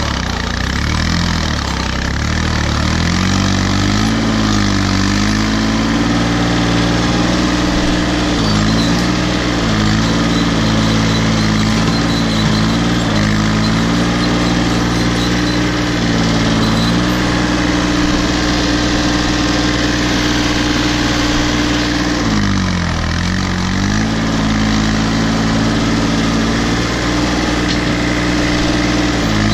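Case 235 compact tractor's diesel engine running steadily under way, its pitch dipping and recovering several times, most deeply about 22 seconds in.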